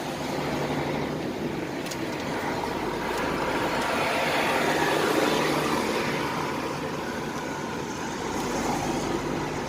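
KAMAZ truck running on the road, heard from inside the cab: a steady engine hum under road and tyre noise that swells for a few seconds in the middle and eases off again.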